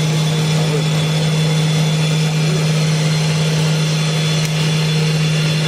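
CNC wood lathe running steadily during machining: an unbroken low motor hum with a few faint high steady tones over it.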